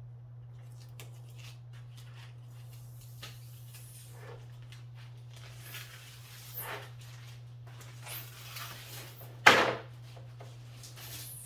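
Plastic rustling and scraping as the protective plastic cover is peeled off a plastic front lip splitter: a handful of short rasps, one louder near the end, over a steady low hum.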